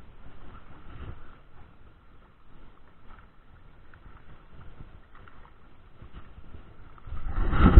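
Hooked trout splashing at the surface in shallow water as it is reeled in to the bank. A loud low rumble on the microphone comes near the end.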